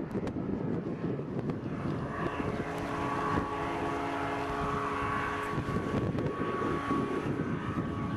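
Powered parachute's engine and propeller droning steadily, clearest for a few seconds in the middle, over gusty wind noise on the microphone.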